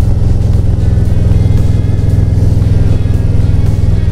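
Harley-Davidson Road Glide's V-twin engine running steadily at cruising speed on the open road, with music playing over it.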